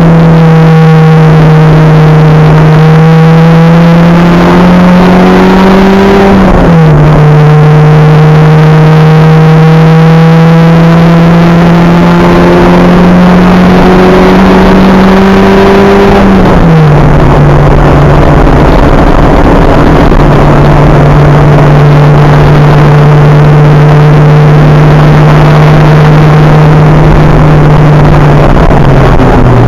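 Acura Integra race car's engine heard from on board, loud throughout, its pitch climbing steadily under acceleration with sharp drops at upshifts about 7 and 17 seconds in. It then holds a steady pitch for about ten seconds and drops again near the end. Steady road and wind noise lies under it.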